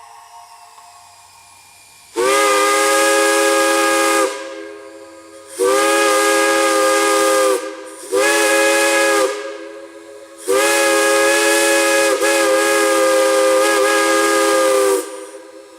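Multi-chime steam whistle blown in four blasts, long, long, short, long, the railroad grade-crossing signal. Each blast sounds a chord of several notes over the hiss of escaping steam, and the last blast is held longest. Faint steam hiss carries on between the blasts.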